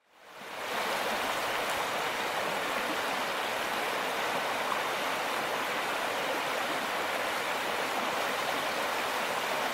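Running water, a steady rush that fades in over about the first second and then holds even.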